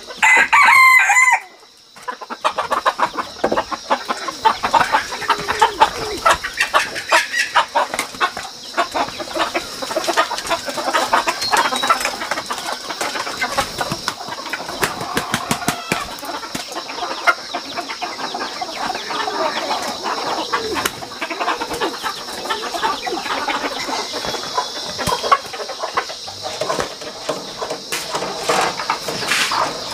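Wild chickens let out of a basket: a loud squawking call in the first two seconds that breaks off abruptly, then ongoing clucking and wing flapping.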